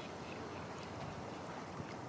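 Steady beach ambience: the even wash of gentle surf on the shore, with no distinct events.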